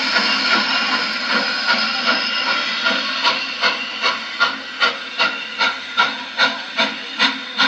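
Norfolk & Western J-class 611, a 4-8-4 steam locomotive, passing close by: a steady hiss of steam, with rhythmic exhaust chuffs about two and a half a second that grow sharper and more distinct over the second half.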